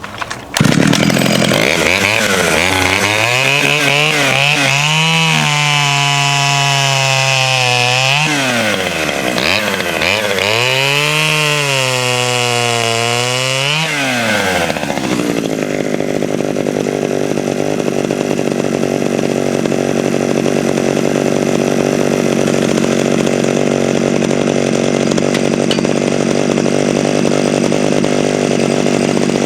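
A 1970s Pioneer P20 51cc two-stroke chainsaw running at high speed: revved up and down several times in the first half, then holding a steady pitch through the second half while it cuts a log into firewood.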